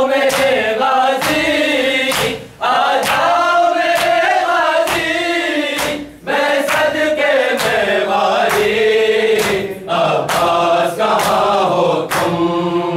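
A chorus of men chanting a Muharram noha (Shia mourning lament) in unison, with brief breaks between lines. Matam chest-beating sounds under the voices as a steady beat of hand strikes, about one a second.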